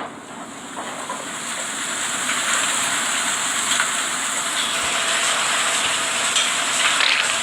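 A steady rushing hiss with no clear pitch that grows louder over the first few seconds, then holds.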